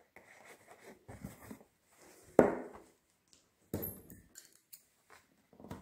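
Embroidery cloth and wooden hoop being handled: rustling fabric and light scraping, with one sharp knock about two and a half seconds in and a few light clicks a second later.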